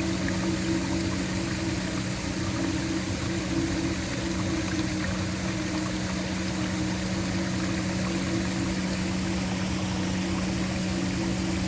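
Waterfall rushing steadily, a constant even wash of falling water, with a low steady ambient drone beneath it.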